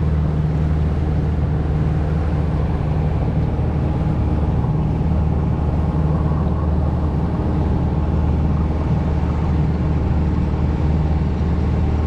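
Boat's outboard motor running steadily while underway, a low even drone over the rush of the moving boat.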